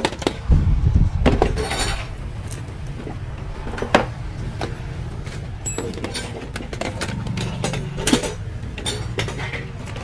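Clinks, clacks and knocks of used power tools and their cords and plugs being picked up, set down and moved about, the sharpest knock about four seconds in.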